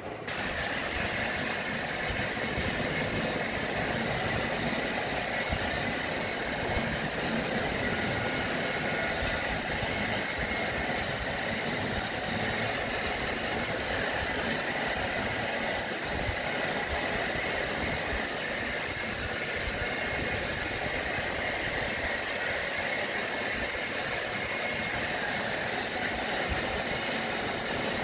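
Hand-held hair dryer blow-drying wet hair: a steady blowing noise with a faint high whine from its motor. It comes on right at the start.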